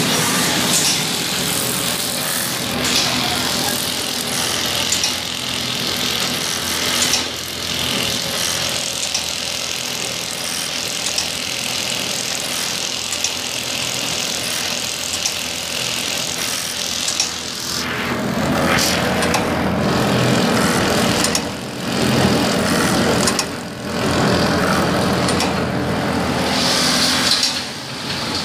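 Automatic bag stitching machine running: a steady mechanical hum and rattle from its motor and sewing head, with short sharp clicks now and then. About two-thirds of the way in the running grows heavier, with a few brief dips.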